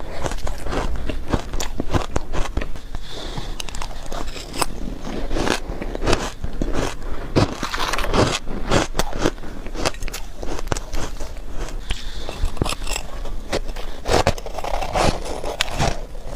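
Close-miked biting and chewing of soft shaved ice: dense, irregular crunching and crackling that keeps going with no pause.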